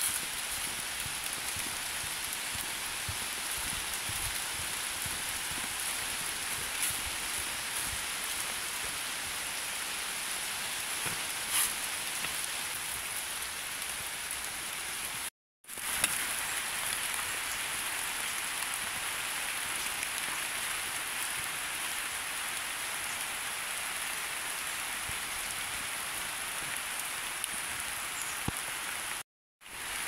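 Rain falling steadily on the autumn foliage of a forest, an even hiss of drops on leaves. It cuts out for a moment about halfway and again near the end.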